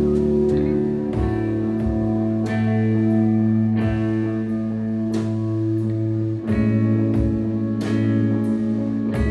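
Slow indie rock band playing live: droning electric guitars over a heavy sustained bass, with a steady drum beat.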